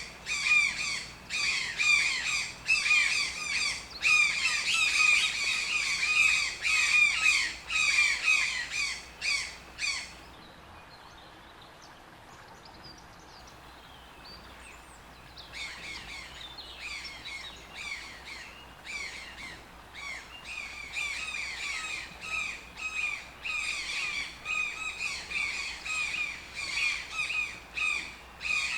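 Toucan calling: a rapid series of harsh, croaking squawks, several a second. The calls break off about ten seconds in and resume some five seconds later, softer at first.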